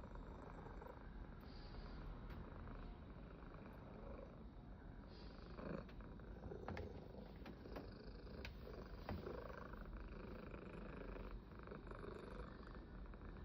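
A cat purring steadily, a purr described as too loud, with a few faint clicks about six to nine seconds in.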